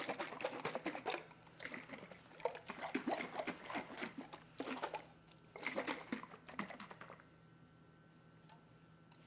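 A lidded glass canning jar of broth and flour shaken by hand in several short spells, the liquid sloshing and the jar clicking and rattling, stopping about seven seconds in.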